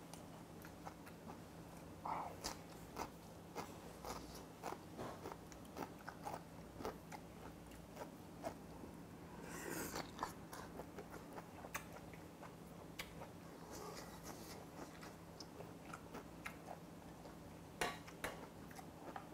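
A person chewing mouthfuls of jjamppong noodles and seafood, giving many small wet clicks, with a longer slurp about ten seconds in and a sharper click near the end.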